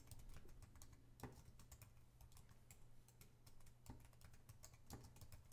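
Faint typing on a computer keyboard: a quick, uneven run of key clicks with a few harder strikes scattered through it.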